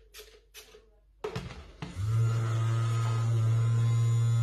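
A few light plastic clicks as a toy iron is handled, then about two seconds in the toy iron's electronic sound comes on as a loud, steady low hum.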